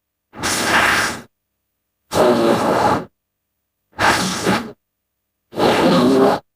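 Four breathy, raspy creature calls, each about a second long, with dead silence between them. They are voiced sound effects for an imaginary orca–shark hybrid.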